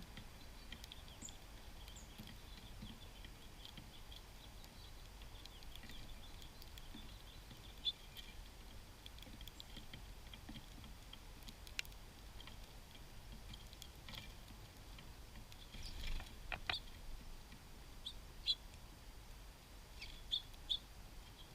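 Small songbirds at a backyard feeder giving short, scattered chip and chirp calls over a faint steady background hiss, with a few louder sharp clicks and taps in the second half.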